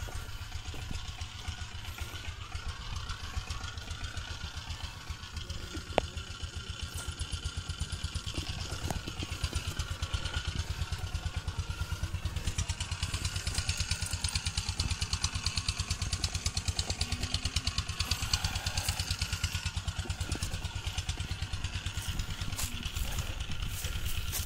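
A small engine running steadily at idle, with an even, rapid low thudding.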